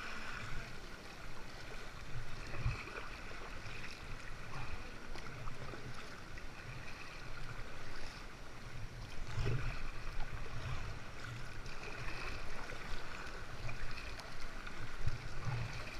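Seawater sloshing and splashing around a kayak, with irregular soft knocks against the hull.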